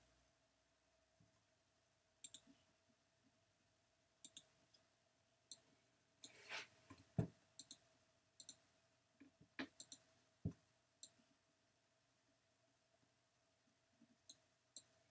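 Faint, scattered computer mouse clicks, many in quick pairs like double-clicks, with a short rustle and two soft low thumps around the middle.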